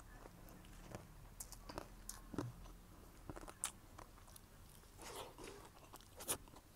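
Faint, close-up chewing and crunching of crispy fried dried fish eaten with rice, with short sharp crunches at irregular moments and a longer crunchy patch about five seconds in.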